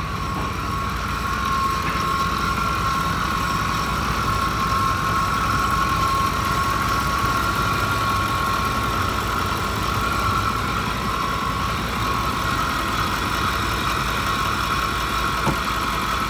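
Ford 5.4 Triton V8 idling steadily with a constant high-pitched whine from the accessory drive. The mechanic first takes the whine for a tired power steering pump working too hard, then for one of the pulleys.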